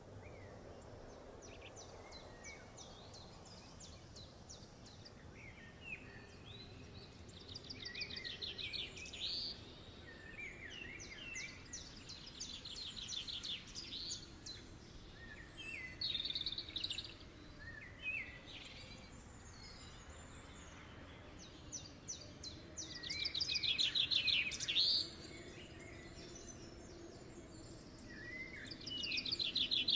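Songbirds singing: several rapid trilled phrases a few seconds long each, the loudest a little before the end, over faint steady background noise.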